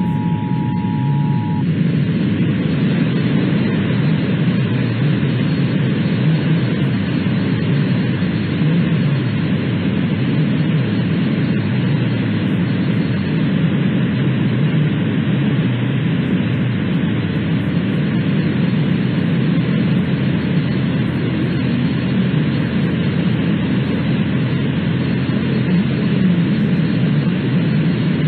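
The Emergency Alert System two-tone attention signal ends about a second and a half in. After it comes a loud, steady hiss of broadcast static with no voice message.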